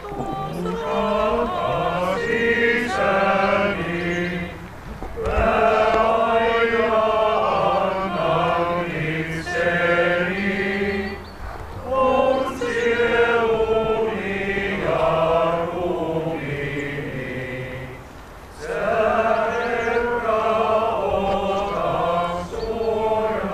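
Congregation singing a hymn together, line by line, with a short breath pause between phrases about every seven seconds.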